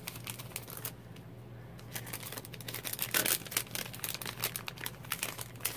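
Clear cellophane packet crinkling and rustling as it is opened and the paper pieces inside are handled, in irregular bursts, loudest about three seconds in.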